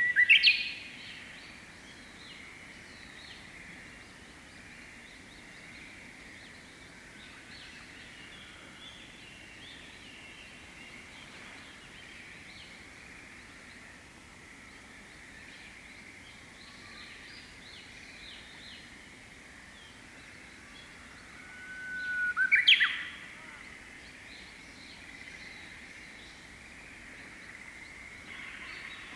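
Japanese bush warbler (uguisu) singing its 'hoo-hokekyo' song twice. The first song ends with a quick rising flourish right at the start; the second comes about three quarters of the way through, a long held whistle breaking into a quick rising flourish. Faint chirping carries on in between.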